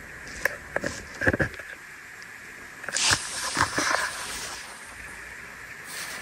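Footsteps scuffing and crunching on a debris-strewn concrete floor: scattered clicks and knocks in the first second or so, then a louder crunch about three seconds in. A faint steady high-pitched hum runs underneath.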